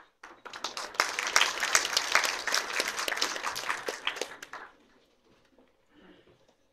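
Audience applauding: many hands clapping in a hall, which starts just after the beginning and dies away about four and a half seconds in.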